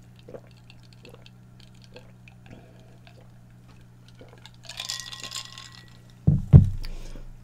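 Soft gulping while drinking cola from a glass, a short breathy exhale, then two heavy knocks as the glass is set down on a wooden board near the end.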